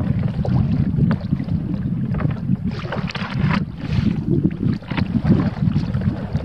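Wind buffeting the microphone as a steady low rumble, with water splashing from kayak paddle strokes; the densest splashing comes about three seconds in.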